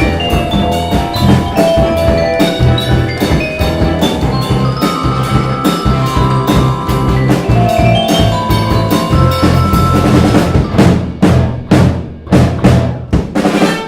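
Live band with drum kit and bass under held mallet-percussion notes (vibraphone and steel pan). Near the end the drums break into a run of hard separate hits.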